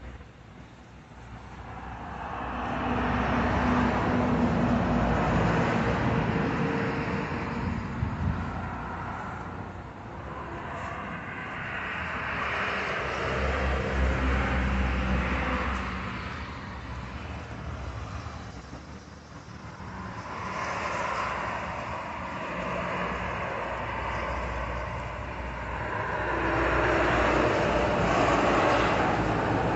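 Outdoor rushing noise that swells and fades several times, with a low rumble underneath.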